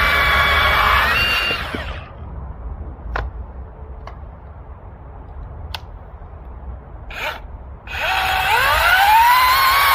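Cordless battery chainsaw running with a high whine, winding down about two seconds in. A few sharp clicks follow, then about eight seconds in the motor spins back up with a rising whine and keeps running.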